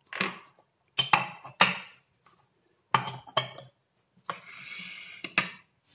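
Steel spoons and ceramic lids clinking and knocking against ceramic oil jars as they are handled: about half a dozen sharp clinks spread through, with a brief scraping sound near the end.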